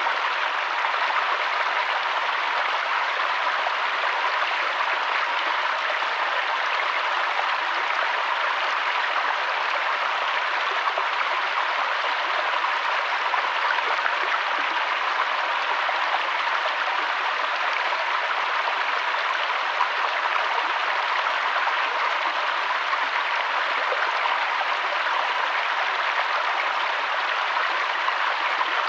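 Mountain waterfall: a steady, even rush of falling and splashing water with no breaks or changes.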